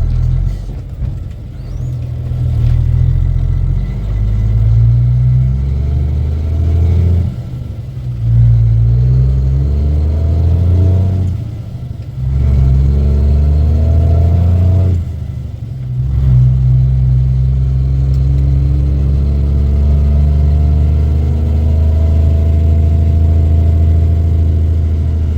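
M11 Cummins diesel of a heavy International 8100 truck pulling a loaded trailer. Its engine note climbs and then dips three times as it shifts up through the gears, then holds steady at cruising speed.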